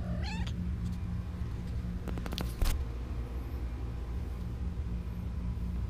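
A kitten gives one short mew right at the start, then a quick run of sharp clicks a little over two seconds in, all over a steady low hum.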